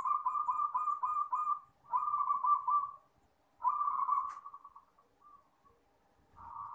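Zebra dove (perkutut) singing its rolling, trilled coo in three phrases, each a second or so long, with a fourth phrase starting near the end.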